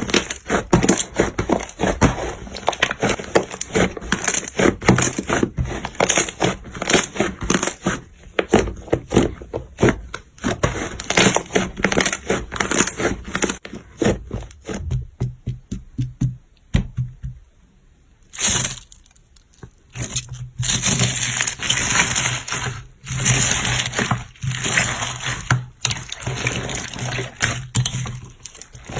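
Slime being squeezed and poked, giving many rapid, sticky clicks and pops. It drops away briefly about two-thirds of the way through, then returns as a denser crackle.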